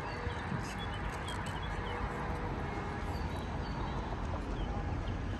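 Outdoor city street ambience: a steady wash of traffic and crowd noise with small birds chirping repeatedly and a few faint ticks.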